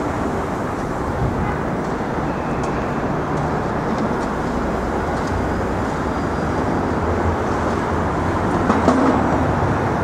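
Steady noise of city road traffic, with no single event standing out.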